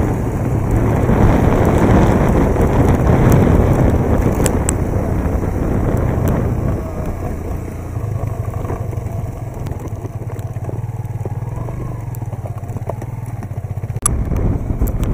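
A motor vehicle engine runs steadily under rough road and wind noise, louder for the first few seconds and then easing. The sound changes abruptly near the end.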